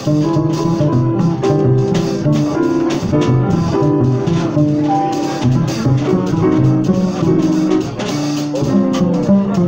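Live jazz: a double bass plucked in a run of quick, changing notes, with a drum kit playing lightly behind it.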